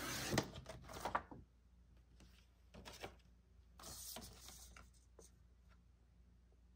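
Sliding paper trimmer cutting a laminated sheet: the blade carriage is drawn along the rail in a scratchy swish lasting about a second, with two sharp clicks. A second, softer scratchy swish follows about four seconds in.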